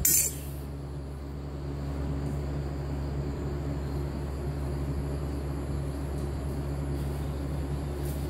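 A steady low machine rumble that grows slightly louder about two seconds in, with a short sharp crackle at the very start.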